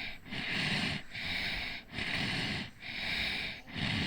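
Ujjayi-style breathing: light, snore-like breaths drawn in and out through a slightly contracted throat, imitating a sleeping child's breathing. About five quick breaths in four seconds, each a soft, even hiss.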